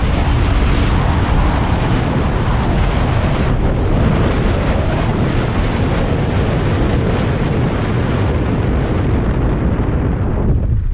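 KTM Duke 250's single-cylinder engine pulling under way at speed, heavily mixed with wind buffeting on the microphone. The engine briefly drops off near the end.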